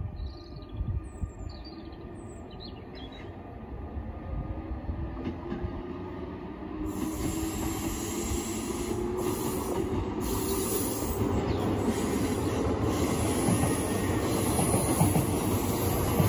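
RER C double-deck electric train running past, its rumble growing steadily louder, with a motor whine that slowly rises in pitch. A high wheel squeal comes in about seven seconds in.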